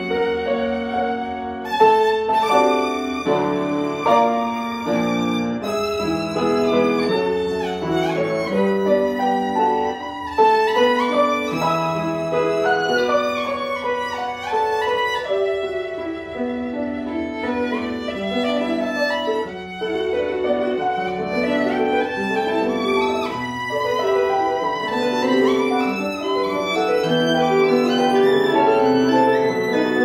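Violin playing a melody with vibrato over piano accompaniment.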